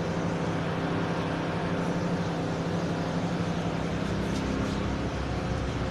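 Steady low mechanical hum, an even drone that holds without change.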